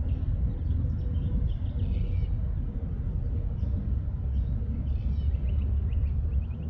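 Steady low rumble of distant fighter jet engines on the runway, with birds chirping in short repeated calls over it, most often near the end.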